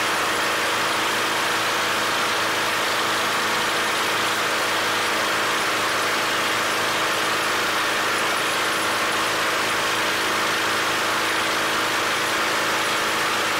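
Briggs & Stratton single-cylinder lawn mower engine running steadily at one speed while its cylinder head, tapped with a check valve, pumps compressed air through a hose into a bicycle tire.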